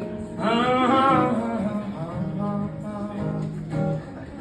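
Sung vocal line over strummed acoustic guitar in a live country song, with long held notes near the song's close.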